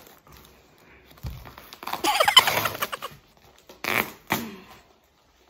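A parcel wrapped in duct-taped plastic being torn open by hand: a soft thump, then a loud, squeaky stretching rip about two seconds in, and two shorter rips near the four-second mark.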